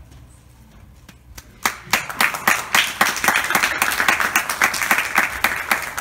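Audience applauding: a few scattered claps about a second and a half in, then the clapping quickly builds to full, steady applause.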